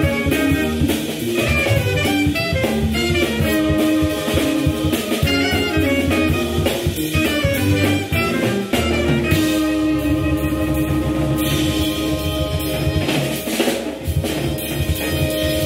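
Live jazz quartet playing: an alto saxophone plays a line of quick notes over a drum kit, with organ and electric guitar in the band.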